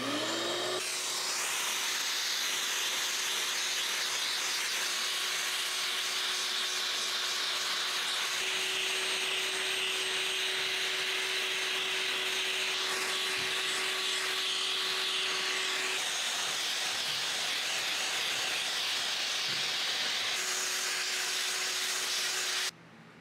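Wet/dry shop vacuum switched on, its motor winding up with a rising whine and then running steadily as its brush attachment sucks dust off the heater's metal housing. The pitch shifts slightly a few times as the brush presses on the surface, and it stops abruptly near the end.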